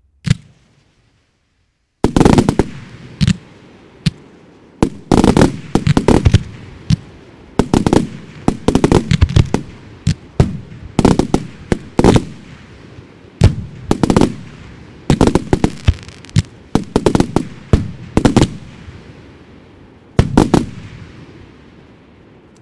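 Fireworks display: one sharp bang, then, after a short gap, rapid clusters of loud bursting bangs with crackle and a rolling echo that keep coming for most of the time and die away near the end.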